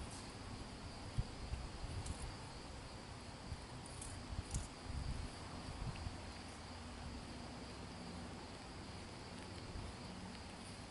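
Insects chirring in a steady, even high drone, with a few low thumps in the first half.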